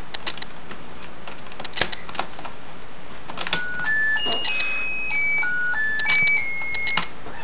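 Toy dollhouse bed's battery-powered nightlight playing its lullaby, a tinny electronic tune of single beeping notes starting about three and a half seconds in. Before the tune there are scattered light clicks.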